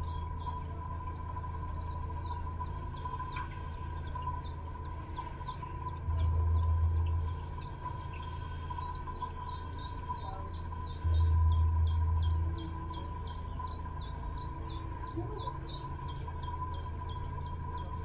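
Small birds chirping in quick repeated notes, near the start and again through the second half, over the steady low hum of a narrowboat's engine under way. Two louder low rumbles, each lasting a second or so, come about six and eleven seconds in.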